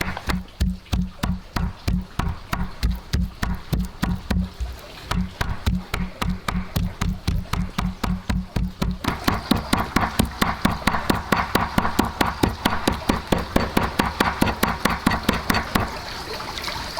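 Rapid, steady chopping with a heavy knife on a wooden board, about four to five dull knocking strokes a second, getting brighter and a little louder about nine seconds in.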